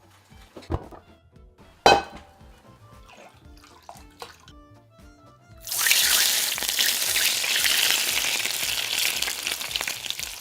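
A couple of sharp knocks, then about halfway through a loud, steady sizzle starts and keeps going: fish scales frying in hot oil. Background music plays throughout.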